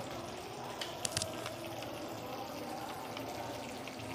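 Onion-tomato gravy with peas cooking in a kadhai on a gas burner: a steady soft hiss of simmering, with a few small clicks about a second in.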